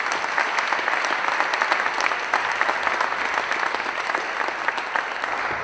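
Audience applauding, many hands clapping together at an even level.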